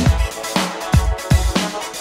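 Alesis Talent 61 portable keyboard playing one of its built-in electronic dance rhythms through its own speakers: a steady bass-drum beat of about two hits a second with hi-hat above, the held chords having just stopped at the start.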